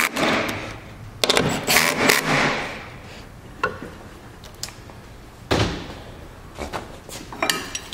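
Cordless drill-driver running in short bursts as it snugs up the jet pump's mounting bolts, with a few clicks of metal hardware in between.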